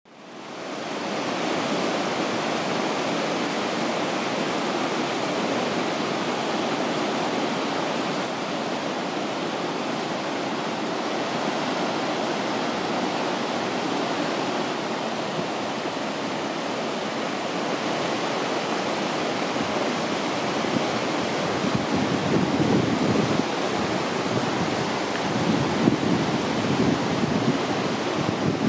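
Rushing creek water, a steady loud roar, with a few louder low rumbles in the last several seconds.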